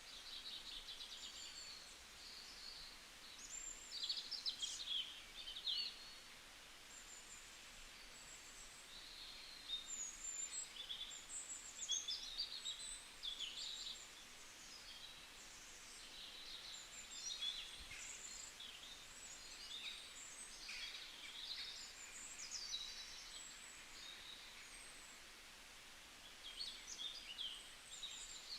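Several songbirds singing in a forest, with high chirps and trills overlapping over a low, steady hiss. The song comes and goes, louder around four, ten and twelve seconds in.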